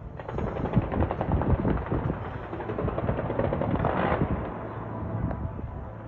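Aerial fireworks going off in a rapid, dense crackle of many small pops and bangs, swelling briefly about four seconds in.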